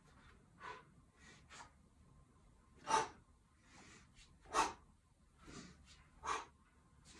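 A man's sharp, forceful exhales in time with one-hand kettlebell swings, about one every second and a half. The first few are soft and the breaths grow much louder from about three seconds in as the swings build.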